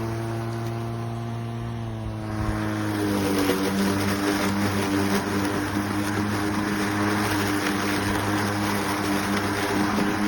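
Greenworks 40V cordless electric push mower running, its motor and spinning blade giving a steady hum. About three seconds in the sound grows louder and rougher.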